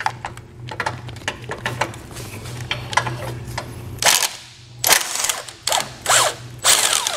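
Cordless impact wrench with a deep-well socket hammering loose 18 mm nuts on the bumper studs, in short rattling bursts that are loudest in the second half.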